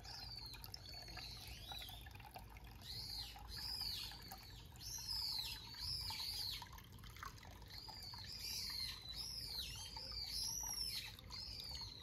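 Small birds calling, a run of short high chirps that rise and fall, coming in clusters, over a low steady wash of hot-spring water running from the stone bath's spout.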